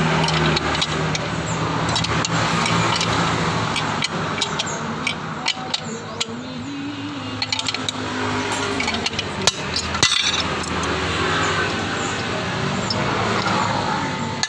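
Scattered sharp metallic taps and clinks of hand tools on the metal parts of a Yamaha Lexi scooter's CVT pulley being taken apart, with one louder knock about nine and a half seconds in, over a steady background noise.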